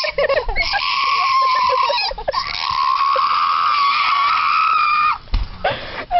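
A young woman screaming in disgust: two long, high-pitched held screams of about two and three seconds, then short gasping cries near the end.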